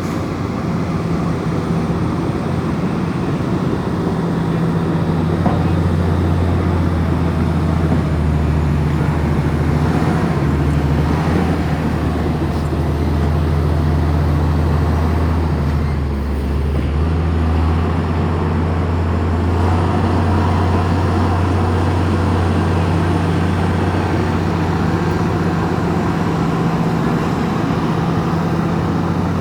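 Komatsu bulldozer's diesel engine running steadily under load as it pushes dirt, with a brief dip in revs about halfway through before it picks up again.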